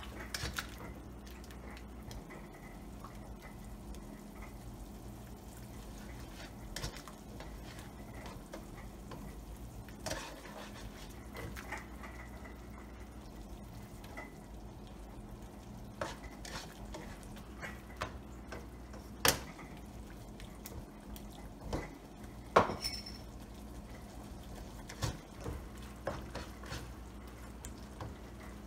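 A spatula stirring beef in gravy in a nonstick wok as a cornstarch slurry thickens the sauce. The spatula scrapes and gives scattered sharp clicks against the pan, a few of them louder in the second half, over a steady low hum.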